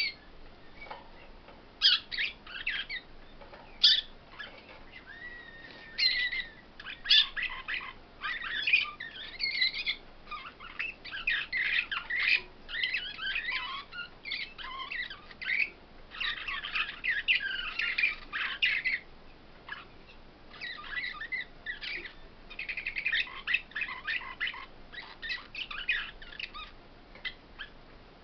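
Small caged finches singing: bouts of rapid, twittering, warbled song with short gaps and one longer lull about two-thirds of the way through.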